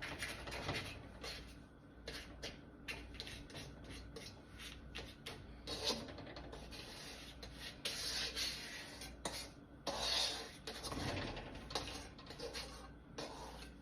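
Irregular scraping, rubbing and light knocks of a utensil working in a wok while a stick of butter melts in it.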